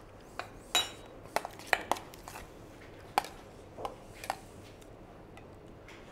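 Metal spoon scraping and clinking against a stainless steel mixing bowl while stirring a thick chive sauce. The clinks are sharp and irregular, about ten of them, and one near the start rings out.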